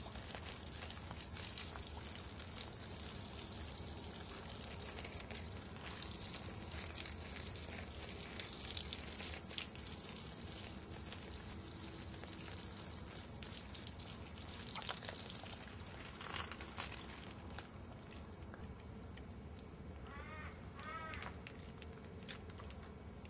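Water trickling and dripping steadily while a koala drinks, with a few faint clicks.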